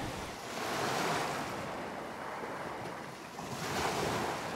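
Sea surf washing, swelling about a second in and again near the end.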